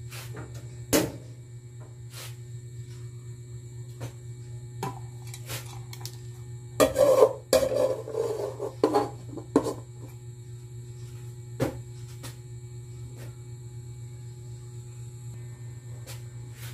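An aluminium lid clattering and scraping as it is set onto an aluminium wok, in a burst of metal knocks and rubs a little under halfway through. A few single knocks come before and after it, over a steady low hum.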